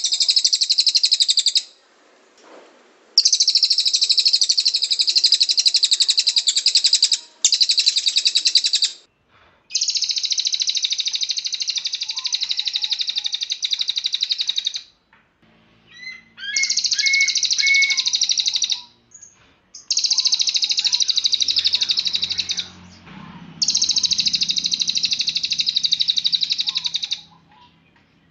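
Cililin songbird singing long, fast, high-pitched trills ("tembakan"), seven phrases of one to five seconds each, separated by short pauses.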